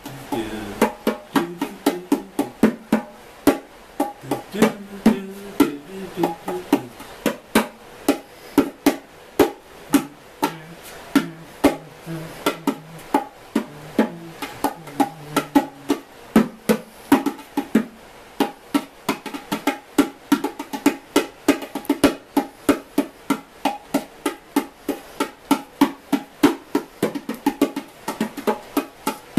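A pair of bongos played with bare hands: a continuous rhythmic stream of sharp hand strikes on the two drum heads, several a second.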